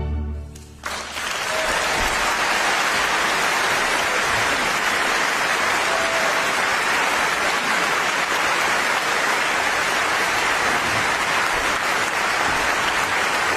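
An orchestra's final chord dies away, and about a second in a concert-hall audience starts applauding, a steady dense clapping that carries on to the end.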